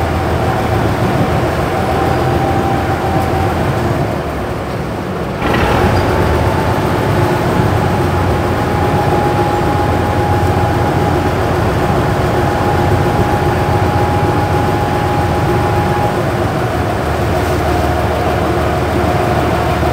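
Engine of a cross-river ferry boat running steadily under way, a constant hum over a wide rushing noise. It dips briefly, then picks up and runs louder from about five and a half seconds in.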